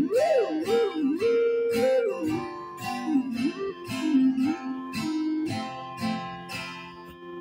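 Theremin playing a melody that swoops up and down in pitch, over a strummed acoustic guitar.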